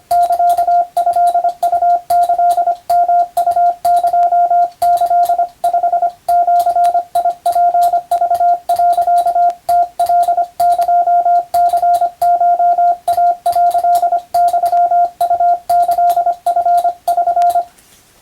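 Morse code tone sent by hand on a telegraph key: a single steady beep, switched on and off in short dots and longer dashes, with a click at each keying. It stops shortly before the end.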